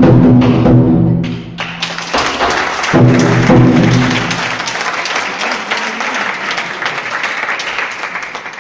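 Drum-heavy music playing, breaking off within the first couple of seconds, then applause from the audience, the clapping slowly fading away near the end.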